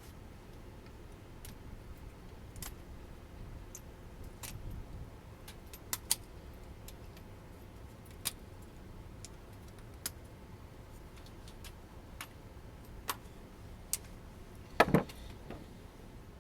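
Metal tools and parts being handled: scattered light clicks and clinks at irregular intervals, with a louder double clunk near the end.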